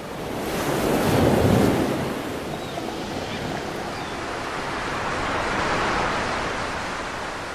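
Ocean surf breaking and washing up a beach, a rushing noise that swells loudest about a second and a half in and again near six seconds.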